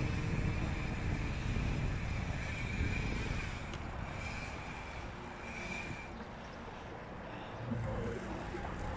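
Wind rushing over the microphone and tyre noise of a bicycle rolling on asphalt, a steady rumble that eases a little after about six seconds.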